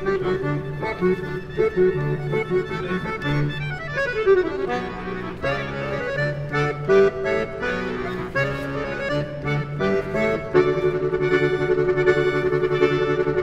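Accordion playing a tune over steady low bass notes, with a quick falling run of notes about four seconds in and louder, fuller held chords from about ten and a half seconds in.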